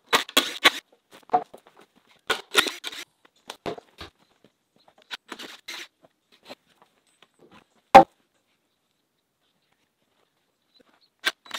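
Wooden form boards being worked loose and pulled off the edge of a freshly cured concrete slab: scattered scrapes and knocks, with one sharp hammer blow about eight seconds in, the loudest sound.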